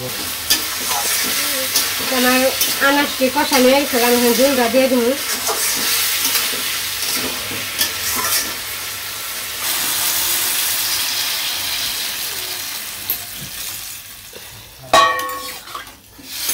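Ash gourd pieces sizzling in hot oil in a steel wok as they are stir-fried, with the stirring spoon scraping through them. The sizzle fades near the end. A sharp knock against the pan comes at about the same point, and a voice is heard faintly early on.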